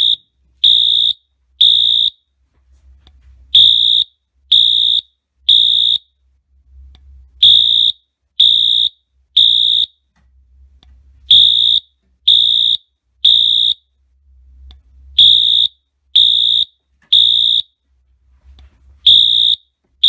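Wheelock AS-24MCC horn strobe's electronic horn sounding loud, high-pitched beeps in the temporal-three fire evacuation pattern: three beeps about a second apart, then a pause, repeating roughly every four seconds.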